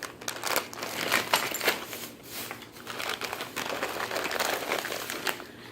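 Plastic bags and packaging crinkling and rustling as goods are rummaged through and pulled out, with many irregular crackles.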